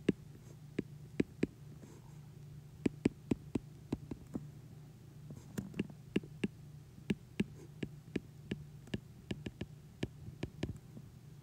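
Apple Pencil tip tapping and clicking on an iPad's glass screen during handwriting: irregular sharp clicks, several a second in clusters, over a faint steady low hum.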